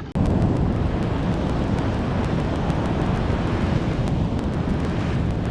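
Steady wind rumbling on the microphone, with ocean surf washing on the beach.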